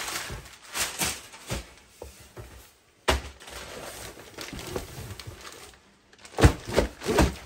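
Cardboard box and packing paper handled: paper rustling at first, a sharp knock on the cardboard about three seconds in, then three dull thumps near the end as a plastic-wrapped package is pulled out of the box.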